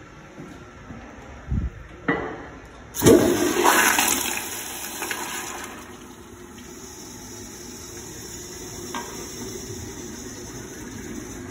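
Kohler Wellworth tank toilet flushing. A couple of knocks come first, then a sudden loud rush of water about three seconds in, which eases after two or three seconds into water running steadily as the bowl and tank refill.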